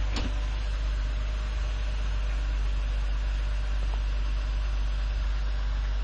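Ford Territory engine idling steadily with a constant low drone and hiss, running after a cold start in 5-degree weather. There is a brief click about a quarter-second in.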